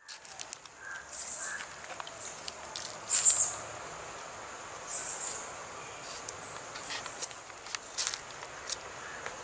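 Small kitchen knife clicking and scraping against a wooden board as garlic cloves are peeled and cut by hand, a few sharp taps standing out near the end. Behind it insects chirr steadily, swelling louder a few times.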